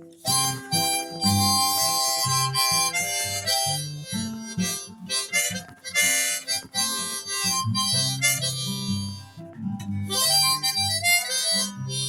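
Harmonica playing a blues instrumental break over strummed acoustic guitar, in loud held and bent notes with short breaths between phrases.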